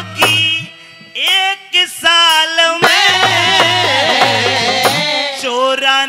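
A man singing a Haryanvi ragni, drawing out long ornamented notes with a wavering pitch, over instrumental accompaniment with low repeated drum beats.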